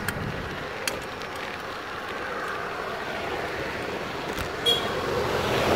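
Steady road traffic noise heard while riding a bicycle along a road, with a few light clicks.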